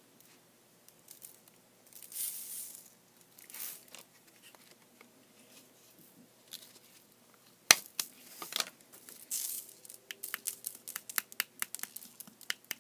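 Smokeless shotgun powder being poured and shaken out of a cut-open 12-gauge shell hull onto a sheet of paper: short hissing pours and paper rustling, then a sharp tap a little past halfway, followed by a run of quick small clicks and rustles.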